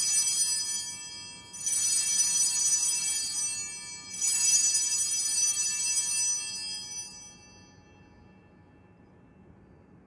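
Altar bells (a cluster of small Sanctus bells) rung three times about two and a half seconds apart, high-pitched ringing that fades out about seven seconds in. They mark the elevation of the chalice at the consecration.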